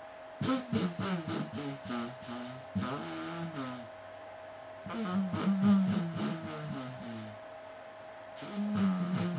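A man moaning in breathy, drawn-out vocal runs: a long run in the first half, another in the middle and a third starting near the end, with short quiet gaps between them. A faint steady high hum runs underneath.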